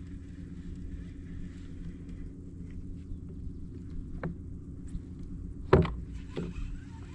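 A boat motor running with a steady low hum, with a few sharp knocks over it, the loudest about six seconds in.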